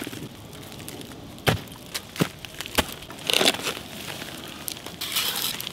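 A wooden stick raking hot coals and ash across the stones of a campfire pit: rough scraping and rustling with a few sharp knocks and crackles.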